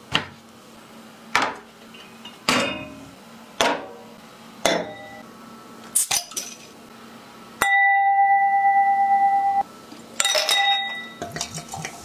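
Glass clinks and knocks with a short ring, about one a second, and a metal cleaver blade striking a beer bottle's cap to knock it off. Midway a loud, steady high tone holds for about two seconds and stops suddenly. Near the end beer starts pouring and glugging into a glass.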